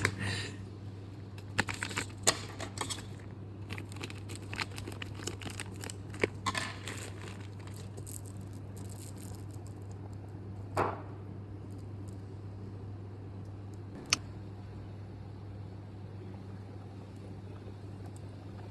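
A steel saw chain being handled, its links giving scattered light clinks and rattles over the first several seconds, then a dull knock about eleven seconds in and a single sharp click about fourteen seconds in, over a steady low hum.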